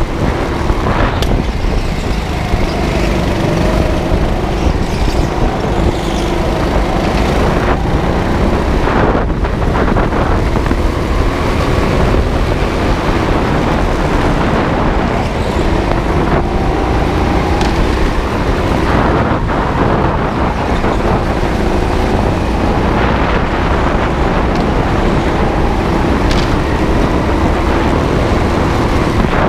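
Go-kart heard from its own seat while lapping a track: heavy wind buffeting on the microphone over the kart's running noise, with a motor tone that rises and falls through the corners and a few short knocks.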